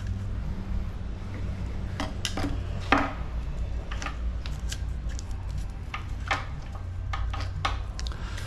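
Scattered light metallic clicks and clinks of tools and bicycle parts being handled, the sharpest about three seconds in, over a steady low hum.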